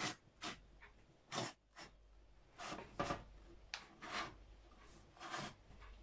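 Freshly baked muffins twisted by hand in their metal muffin-tin cups to loosen them so they don't stick: a series of short, faint rubbing scrapes, about nine in all.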